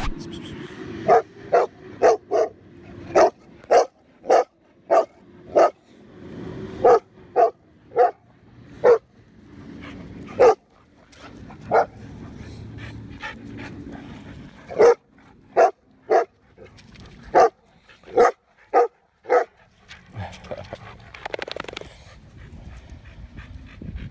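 Black Russian Terrier barking repeatedly at the other dogs' rough play, about two dozen deep single barks, alone or in quick runs of two or three. The barking stops a few seconds before the end.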